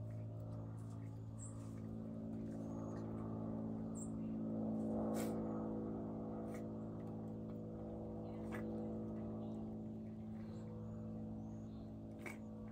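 A steady low machine hum, swelling slightly about five seconds in, with scattered faint clicks and ticks over it.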